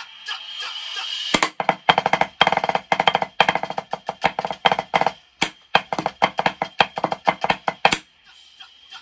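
Marching snare drum played with wooden sticks in a fast rudimental snare break. It swells over the first second, then breaks into loud, dense, accented strokes that stop about eight seconds in. Soft ticks on the beat can be heard before and after the strokes.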